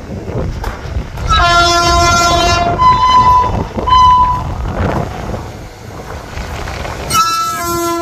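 WAP5 electric locomotive's air horn sounding a long chord, then two short toots, then another blast near the end whose pitch drops as the locomotive passes close. Under it, the train's running rumble on the rails.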